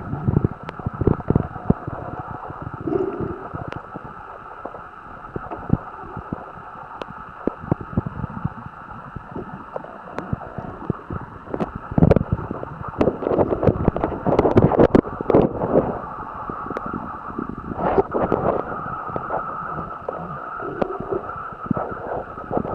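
Muffled sound of water around a submerged camera: irregular knocks, bumps and gurgling from water moving against the camera, over a steady background tone.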